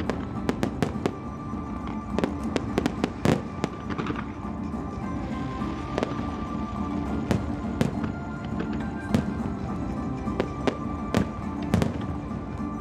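Aerial firework shells bursting in an irregular, quick series of sharp bangs, with music playing underneath.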